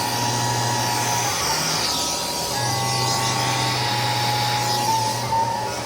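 Genmitsu PROVerXL 6050 Plus CNC router spindle running steadily while it carves plywood. A motor whine over the noise shifts pitch several times as the carving head changes its moves.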